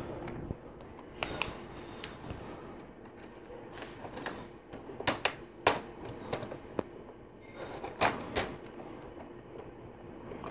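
Plastic LEGO Technic parts clicking and knocking as pins, an axle and lift arms are handled and fitted together. There are several sharp clicks, with a cluster about five seconds in and two more near the end.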